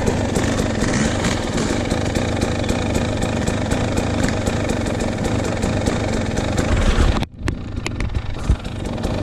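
KTM 300 two-stroke dirt bike engine running at idle. The sound drops out for a moment about seven seconds in, and a short thump follows a second later.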